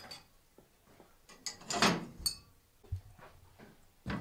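Metal knocks and clatter at a cast-iron wood-burning stove, the loudest a short scraping clank about two seconds in, followed by a ringing clink. Near the end an aluminium pot is set down on the stovetop with a knock.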